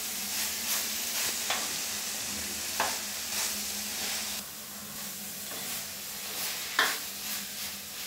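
Wooden spatula stirring and scraping cauliflower and potato curry in a brass kadai over a steady sizzle, with several knocks against the pan, the loudest near the end. The sizzle softens a little about halfway through. The curry is frying dry, its added water cooked off.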